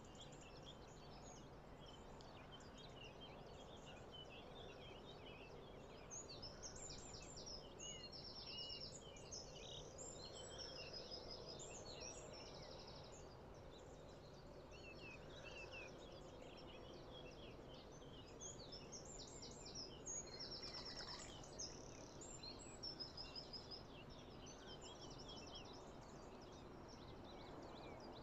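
Faint outdoor birdsong: several small songbirds chirping and singing quick, rapidly repeated trilled phrases, a morning chorus, over a low steady background noise.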